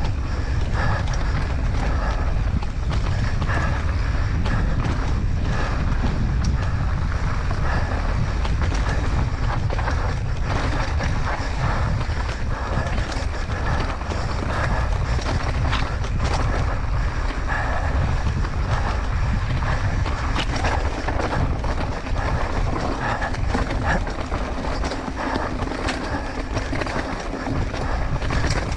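Mountain bike descending a rough trail at speed: wind buffets the microphone with a steady low rumble, while the tyres on dirt and the bike's chain and frame rattle in constant quick clicks and knocks.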